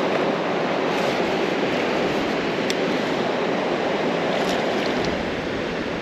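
Steady rushing of river water, an even hiss with a few faint ticks over it.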